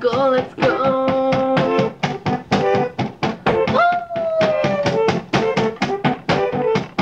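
Instrumental music with a steady drum beat under held melodic notes; about four seconds in, one note slides up and then drifts slowly down.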